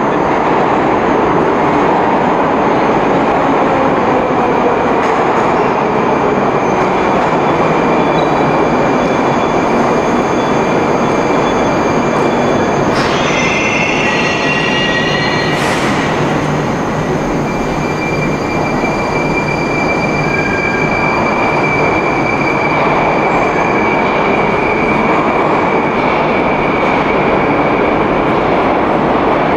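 Moscow Metro train running at speed: loud, steady rumble and rail noise. Thin, high wheel squeals run through it, with a short cluster of several squealing tones about halfway through and a steady high squeal for much of the second half.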